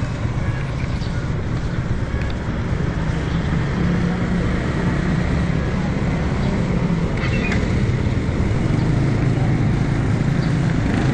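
Small motorcycle engine idling steadily.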